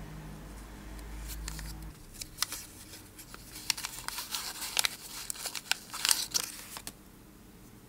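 Small paper watch-crystal packet crinkling and crackling as fingers unfold it to take out a new plexiglass crystal. The crackles start about two seconds in, come thickest in the middle, and stop about a second before the end.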